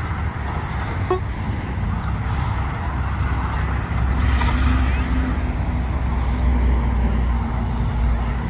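Motor vehicle engine running close by: a low rumble that grows louder about four seconds in, with a steady low hum.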